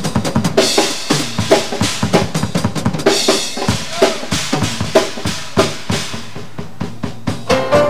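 Drum kit solo in a traditional jazz number: rapid strikes on snare and bass drum with rimshots and cymbals, easing off in loudness over the last couple of seconds. Right at the end a held horn note comes in as the band returns.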